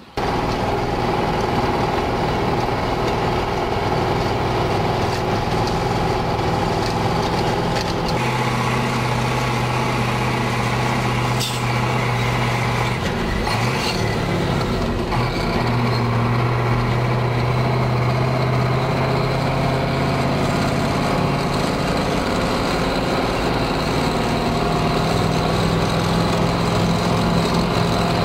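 Truck engine running under way, heard from inside the cab along with road noise. The engine note steps up about 8 seconds in and wavers between about 13 and 15 seconds.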